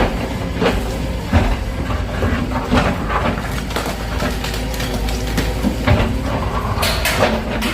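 Excavator engine running steadily, with repeated irregular knocks and clatter from the demolition work, heaviest near the end.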